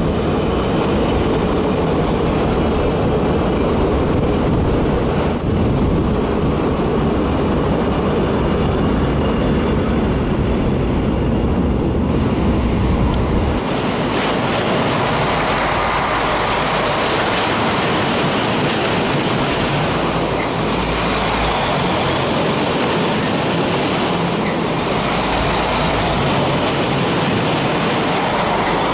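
Vareo Alstom Coradia LINT diesel multiple units passing close by on a steel railway bridge: a steady, loud rumble of engine and wheels on the rails. About halfway through, the deep rumble drops away and a higher rushing noise takes over.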